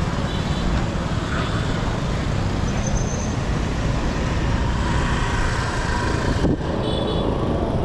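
Steady road and street-traffic noise while riding through town on a motorbike, with other motorbikes passing close by. A brief high beep sounds near the end.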